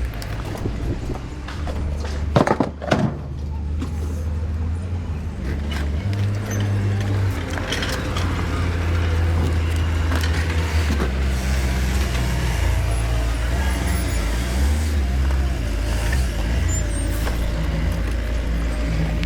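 A vehicle or machine engine running with a steady low rumble that rises and falls in pitch, with a sharp knock and clatter about two and a half seconds in.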